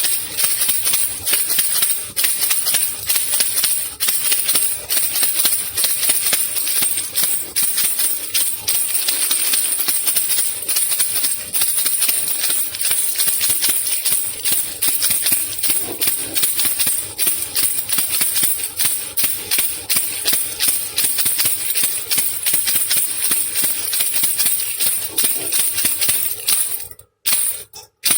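Baby rattle (khulkhula) shaken continuously: a dense, fast rattling with a bright, jingly top. It breaks off briefly near the end.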